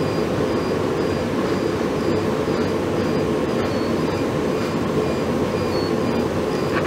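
Steady mechanical hum and rushing noise of laboratory equipment, with a faint high tone pulsing about twice a second.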